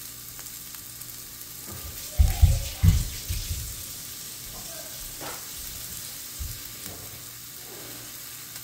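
Salmon fillets sizzling steadily in hot olive oil in a cast iron skillet, with a short run of low thumps about two to three seconds in.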